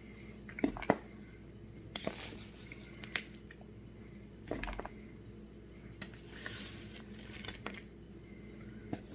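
A metal spoon clinking and scraping against a dish, in a few separate sharp clicks and short scrapes.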